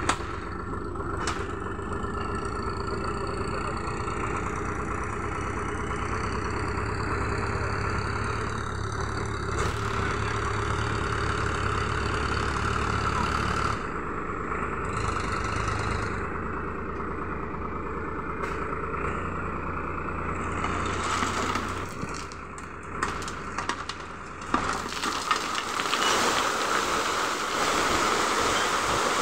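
Tractor engine running steadily while hitched to a loaded gravel trolley, with a few knocks about three-quarters of the way through. Near the end the trolley tips and its load of stone chips slides out with a broad rushing noise.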